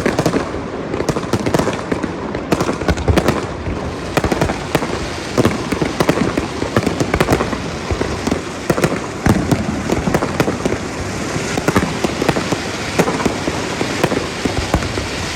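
Fireworks going off: a dense, continuous run of sharp bangs and crackles, many per second.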